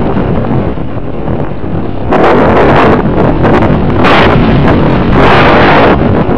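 Loud wind rushing over the microphone of an onboard camera on a flying RC model airplane, rising in gusts about two, four and five seconds in.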